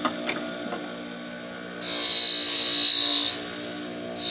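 Electric buffing wheel running steadily, with a knife blade pressed against the compound-charged wheel for about a second and a half about two seconds in, giving a loud high hissing rub. It starts again at the very end. A couple of light clicks come right at the start.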